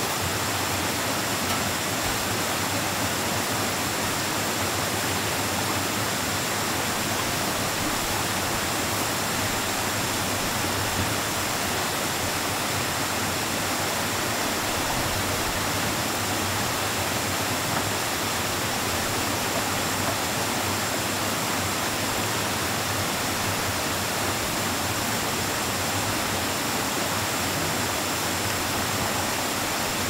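Steady, even rushing noise like running water, unchanging throughout.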